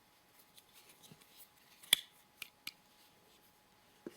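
A few sharp, short metallic clicks and snaps from a Leatherman Surge multi-tool's big scissors being worked in the hand, the loudest about two seconds in.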